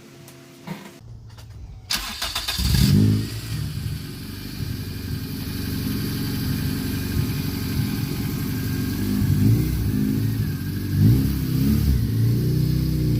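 A car engine is cranked and catches about two seconds in, then runs, its pitch rising and falling a few times as it is revved lightly.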